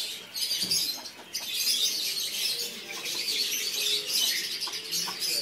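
Many small birds chirping and peeping without a break, a dense, high-pitched chorus.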